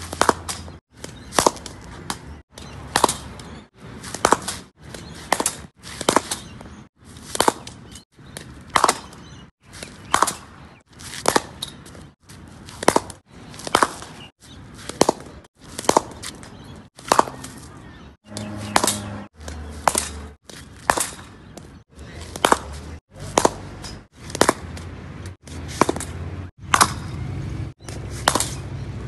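Cricket bat striking balls again and again, one sharp crack every second or less, in short snippets separated by brief gaps of silence.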